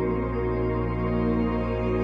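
Background music: slow, sustained new-age style chords held steadily.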